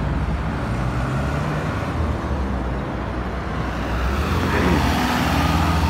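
Road traffic driving past on a multi-lane road: a steady rumble of vans and light trucks with tyre noise. About four and a half seconds in, a vehicle passes close and its engine note falls in pitch as it goes by.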